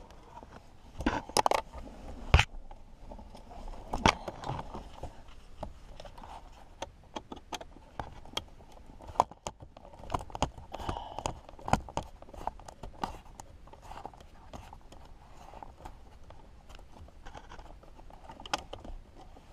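Scattered clicks, knocks and scrapes of a Mercedes 300SD centre console switch panel being worked loose by hand from its trim, with the sharpest knocks a few seconds in and a quick run of small clicks near the middle.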